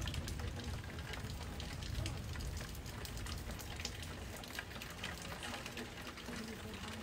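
Rain falling in a thunderstorm: a steady hiss with many close drops pattering. A low rumble underneath is strongest in the first couple of seconds and then eases.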